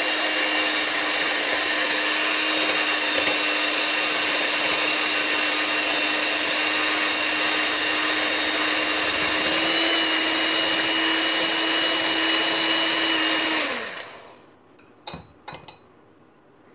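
Electric hand mixer with twin beaters running steadily as it beats eggs in a glass jug, a constant motor whine that rises a little in pitch about ten seconds in. It is switched off about fourteen seconds in and winds down, followed by a few light knocks.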